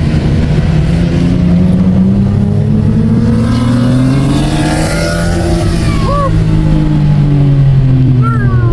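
Race car engines: one runs with a steady low drone while another car passes, its engine pitch rising as it nears, loudest about five seconds in, then dropping as it goes by.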